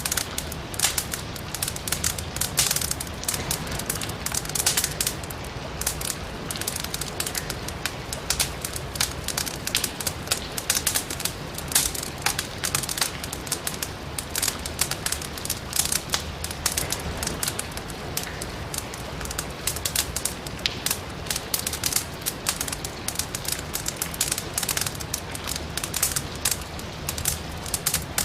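Burning firewood crackling in a fireplace: a dense, irregular run of sharp snaps and pops over a steady low rush.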